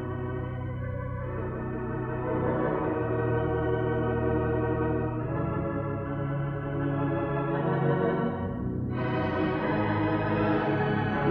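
Hilsdon three-manual, 29-rank theatre pipe organ playing held chords that change every few seconds. About nine seconds in, the sound turns brighter as more treble comes in.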